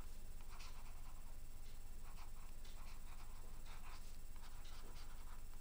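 Faint scratching of a stylus writing on a pen tablet: short, irregular strokes as words are handwritten, over a steady low electrical hum.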